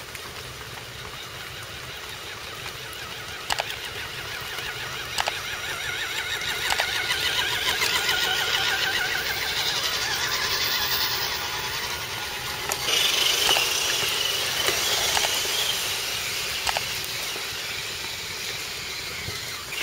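Small electric motor and gears of an RC scale truck whining, the pitch rising and falling with the throttle, with a few sharp knocks scattered through.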